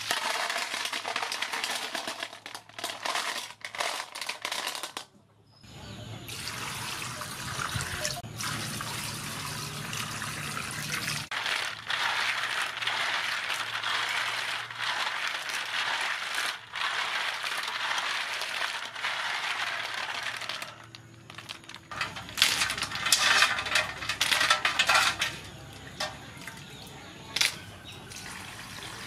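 Freshwater snail shells clattering as they are tipped from a basket into a steel bowl, then swished and rubbed by hand in water, the shells clicking against each other and the metal. Water is poured over them near the end.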